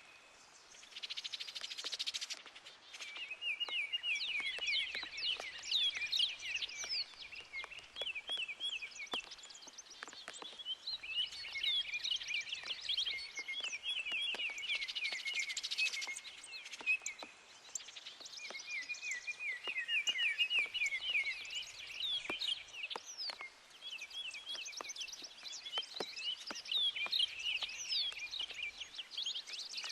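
Wild birds chirping in rapid, repeated runs of high chirps that come and go over several seconds at a time, over scattered drips and patter of rain.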